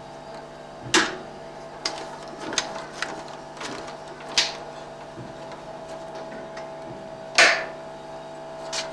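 35 mm film projector running: a steady mechanical hum with irregular sharp clacks over it, the loudest about a second in and again past seven seconds.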